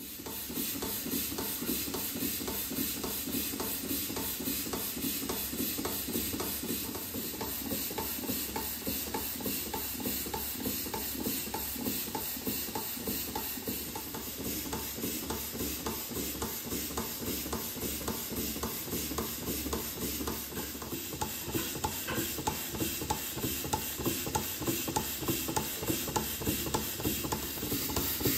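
Stuart model beam engine running steadily: an even, rapid rhythm of mechanical clicks from its moving parts over a constant hiss. It gets a little louder and sharper in the last few seconds.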